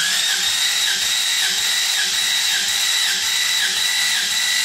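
Starter motor cranking a Toyota 5VZ-FE 3.4-litre V6 with its spark plugs out for a compression test, the engine turning over without firing. A steady whine with an even pulse about two to three times a second.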